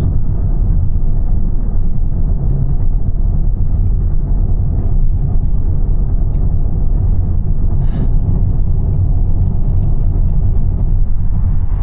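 Steady low road rumble inside a moving car's cabin, from the tyres and car at driving speed.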